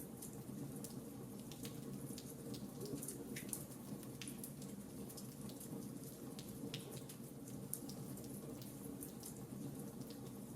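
Fireplace fire crackling: irregular sharp snaps and pops over a steady low rush.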